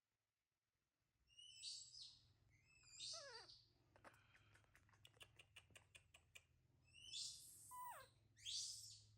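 Baby monkey crying in short, shrill calls that fall sharply in pitch, five or six of them, distressed at a cold-water bath. In the middle comes a run of quick clicks, about five a second, for two or three seconds.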